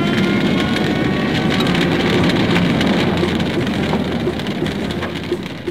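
Radio-play sound effects: a vehicle engine running under a loud, dense crackling rush like heavy rain or a blazing fire, easing off near the end.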